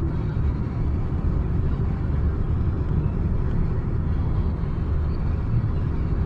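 Steady low rumble of a car travelling at speed, a mix of road and wind noise.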